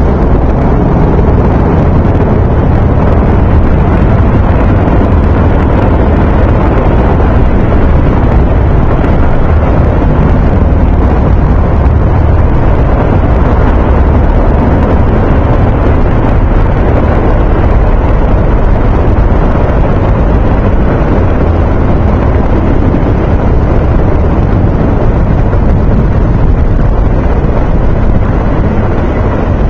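Formation of military helicopters flying overhead: a loud, steady low drone of rotors and turbine engines.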